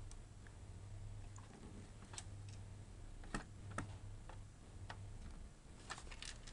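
A few light, sharp clicks and taps of hands and plastic parts being worked inside an opened PS4 console as the power supply unit is eased out, with a cluster of clicks near the end. A steady low electrical hum sits underneath.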